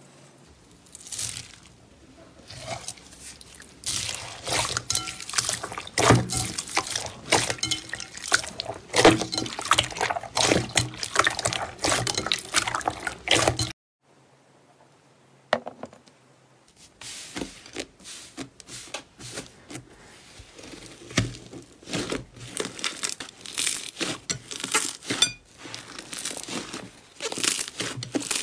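Slime being pressed and kneaded by hand, giving dense wet crackles, pops and squelches; in the first half it is slime packed with small plastic beads, which crunch and click under the fingers. The sound cuts off abruptly about halfway through, then resumes after a brief gap.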